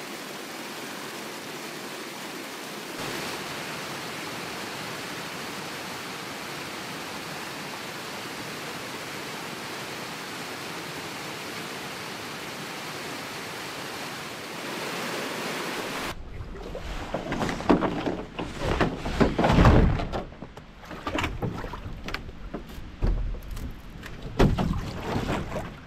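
A small waterfall rushing steadily over rock ledges. About two-thirds of the way through, it gives way to irregular splashes and knocks of a canoe being paddled on calm water.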